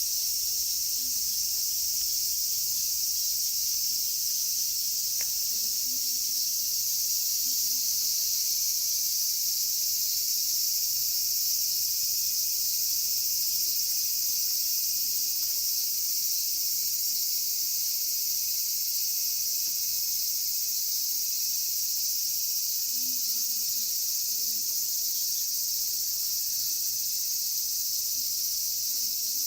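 Cicadas singing in a steady, loud, unbroken high-pitched drone.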